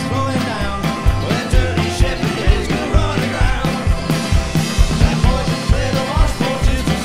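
A bluegrass-punk band playing live: strummed acoustic guitar, guitar and banjo over a steady low beat about twice a second.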